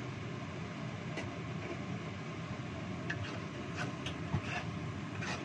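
Stir-frying in a wok: a steady sizzling hiss as sliced shallots and chilies cook in a little sauce, with a wooden spatula scraping and knocking against the pan several times in the second half.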